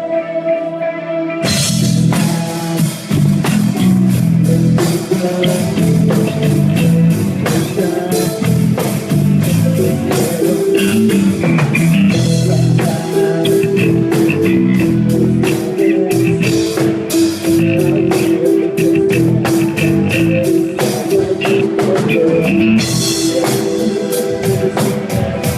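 Rock band playing live on electric guitar, bass and drum kit. A held note sounds first, and the whole band comes in together about a second and a half in.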